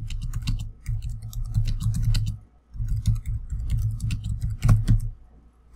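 Computer keyboard being typed on: quick runs of keystrokes with two short pauses, tailing off near the end.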